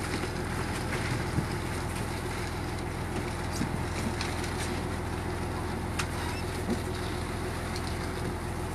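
Steady drone of a fishing boat's engine, with a few faint knocks and clicks scattered through it.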